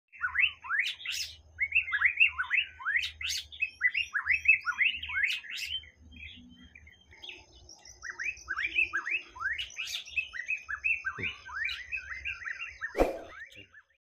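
White-rumped shama singing: quick series of varied whistled notes sweeping up and down, with a pause about halfway before the song picks up again. A thin steady high tone runs under the second half, and a single sharp click comes near the end.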